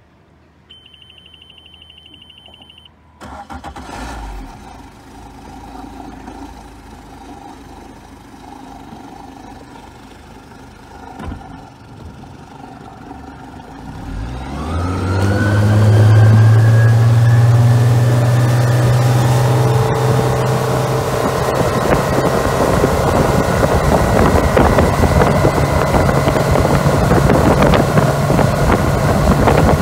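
Suzuki outboard motor: a high electronic beep pulses for about two seconds, then the engine starts and idles quietly. About fourteen seconds in it is throttled up with a rising pitch and runs loud and steady under way.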